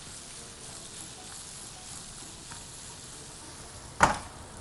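Vermicelli, peas and raisins sizzling as they toast in oil in a frying pan on a gas hob, turned with a spatula. A brief loud sound comes about four seconds in.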